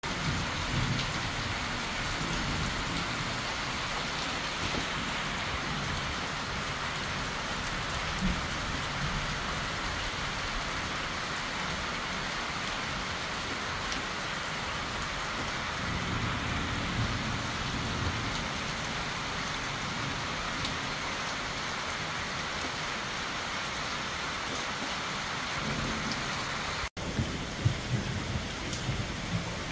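Heavy rain falling steadily on trees and a roof, with low rumbles of thunder now and then. The sound cuts out for an instant near the end.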